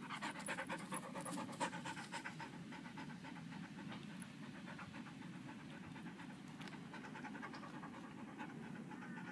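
Belgian Tervuren dog panting, a quick, even rhythm of breaths.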